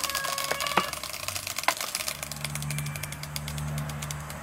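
Sharp crackling ticks from a clear plastic Coke bottle heat-shrinking onto a papaya mould over glowing charcoal, the clicks coming thicker near the end. A low steady hum joins about halfway through.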